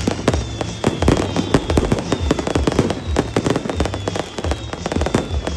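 Fireworks and firecrackers going off in quick succession, a dense run of bangs and pops with short high whistles that fall slightly in pitch about once a second.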